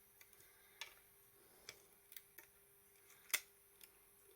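Scattered small sharp clicks and taps from handling the keypad's plastic parts while working a piece free during disassembly, about six in all, the loudest a little over three seconds in.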